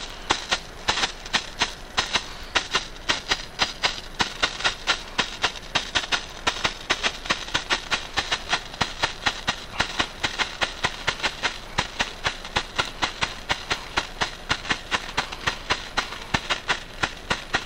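Pyrotrade green strobe Bengal flare burning, crackling with a sharp pop at each flash, about four to five a second, over a faint hiss.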